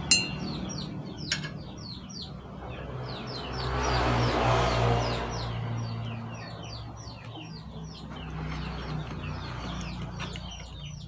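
Birds chirping continually, many short falling chirps in quick succession, over a low steady hum. A sharp click comes right at the start, and a louder swell of noise rises and fades about four to five seconds in.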